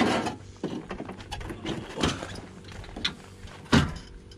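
Clanks and knocks of boat-trailer hardware as the winch strap and hook are worked loose from a small boat's bow. There are several separate knocks, the loudest near the end, over a faint steady low hum.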